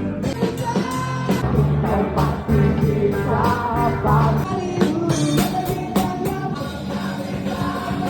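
A rock song with a singing voice and guitar over a steady beat.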